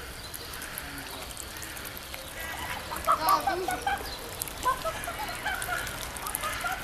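White domestic geese honking, a run of short calls starting about two and a half seconds in and coming in bunches after that.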